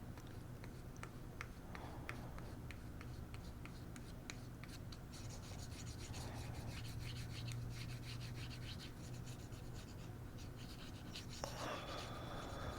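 Faint scraping and rubbing of a tool working solder paste across a reballing stencil, with many small light ticks. A steady low hum runs underneath.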